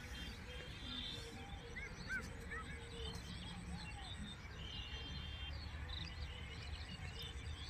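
Outdoor ambience of birds calling: a few short chirps about two seconds in and quick high trills near the start and again about five seconds in, over a steady low rumble of wind on the microphone.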